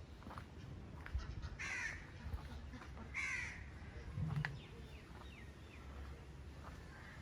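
A bird calls twice, about a second and a half apart, with fainter chirps after the second call. A short low thump comes about four seconds in.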